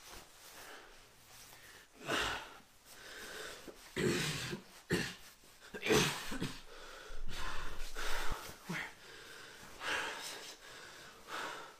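A man gasping and wheezing in a string of sharp, ragged breaths, acting out a heart-attack panic.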